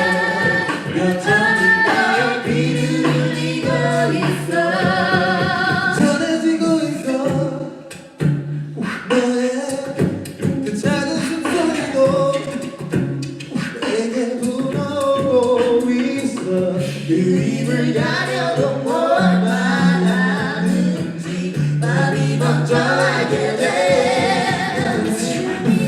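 A cappella vocal group singing in close harmony, with a sung bass line holding low notes beneath the higher voices. The sound drops away briefly about eight seconds in.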